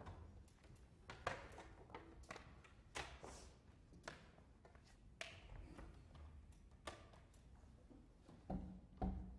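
Faint, scattered taps and knocks with a hall echo: stage noise of musicians settling in on a wooden concert stage. The pianist's footsteps and seating are among it, and there is a somewhat louder knock near the end.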